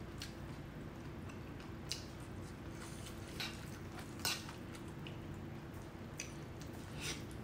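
Eating saucy jjajangmyeon noodles: about six short wet smacks and clicks from chewing and from metal chopsticks working the noodles in the bowl, the sharpest about four seconds in, over a faint steady hum.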